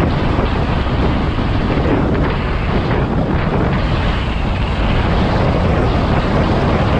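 Steady, loud wind rush buffeting a helmet-mounted camera's microphone while riding an electric scooter at speed.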